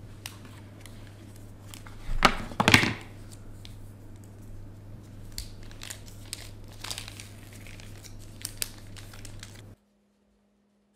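Paper and plastic smartphone packaging crinkling and rustling as a phone is drawn out of its paper sleeve and protective wrap. The crinkling is loudest about two seconds in, then continues as lighter rustles and small taps over a low steady hum, and everything cuts off abruptly about a second before the end.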